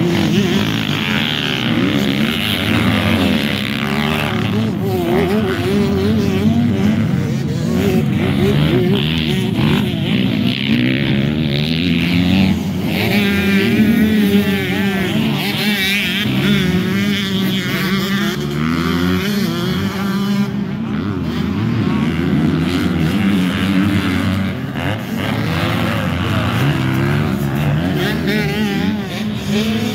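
Several motocross dirt bikes racing, their engines revving up and down over and over as the riders accelerate, shift and back off through corners and jumps.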